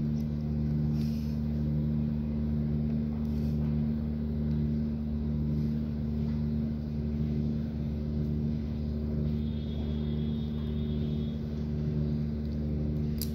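Steady low hum of a running machine, several even pitches held without change.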